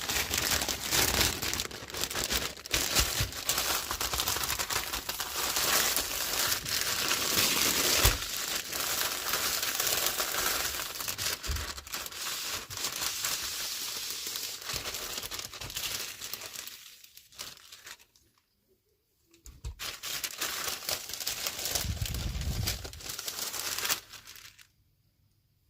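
Toy packaging being crinkled and torn open by hand: dense crackling with small clicks, broken by a short silent pause after about 17 seconds, then more crinkling that stops a couple of seconds before the end.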